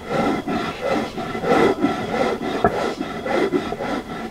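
An upper stone rocking over a flat Andean grinding stone (batán), crushing toasted cañihua grain: a gritty rasp repeated about twice a second, with one sharp knock about two-thirds of the way through.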